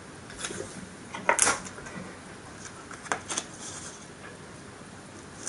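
Hands handling and pressing a folded paper model part and its tape against a tabletop: a few soft rustles and taps, the loudest about a second and a half in.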